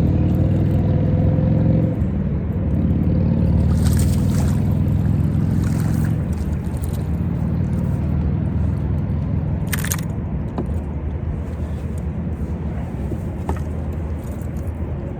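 A boat motor running steadily with a low hum, easing slightly after about two seconds. There are two brief sharp noises, one about four seconds in and one near ten seconds.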